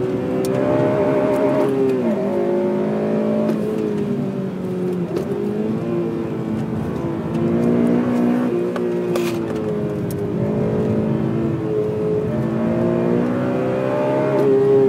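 Honda Civic Type R FN2's 2.0-litre four-cylinder VTEC engine, fitted with a K&N air filter, being driven hard, its note rising and falling with throttle and gears, with a sharp drop in pitch about two seconds in.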